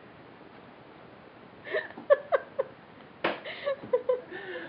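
A young child's high-pitched voice in short, quick vocal bursts, starting about a second and a half in, without clear words. A sharp knock comes about three seconds in.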